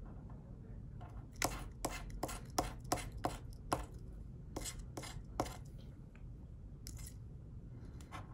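A metal tool scraping the latex coating off a paper scratch-off lottery ticket in short, quick strokes. The strokes come in a fast run from about a second in, then thin out to a few more near the end.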